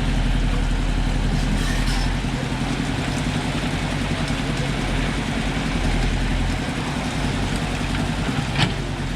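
Volvo wheeled excavator's diesel engine running steadily at a constant speed, with one sharp knock near the end.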